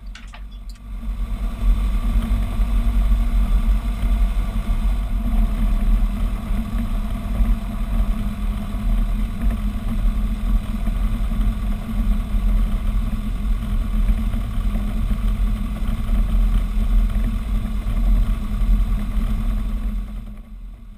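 Robin DR 400 light aircraft's four-cylinder piston engine and propeller running at taxi power, heard from inside the cockpit as the plane rolls along a grass taxiway. The sound is a steady, deep drone that gets louder about a second in and drops back near the end.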